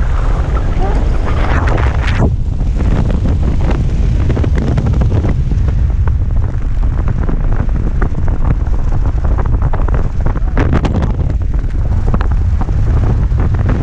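Heavy wind buffeting the microphone of a camera flying under an open parachute canopy, a steady loud rush with irregular fluttering gusts.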